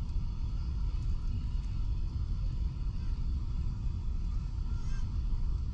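Steady low rumble of airliner cabin noise aboard a Boeing 777-300ER, heard from an economy seat.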